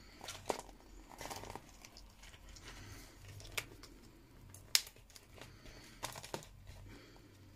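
Hands handling a notebook and its cord while retying a knot: paper rustling and crinkling, with a few short, sharp taps and clicks, the loudest a little past the middle.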